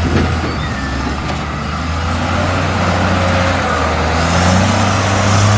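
Heavy diesel engine running steadily, the sound of a bulldozer, a deep hum under a rough noise that gets a little louder near the end.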